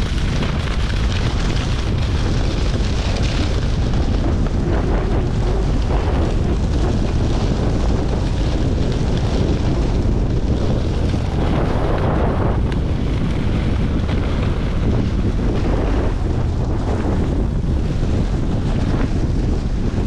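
Wind buffeting the microphone of a skier's action camera during a fast run down a groomed piste, a heavy steady rumble with the hiss of the skis on the snow above it, swelling briefly about twelve seconds in.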